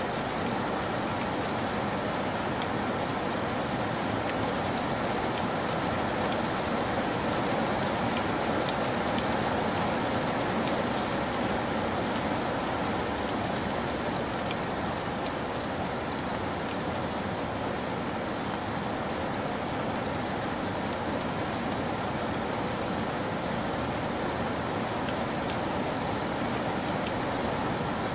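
Steady rain falling, an even hiss with fine ticks of single drops through it.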